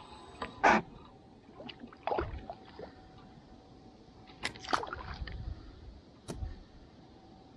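Handling noise while a small fish is played on an ultralight spinning rod: scattered knocks and sharp clicks, the loudest about a second in.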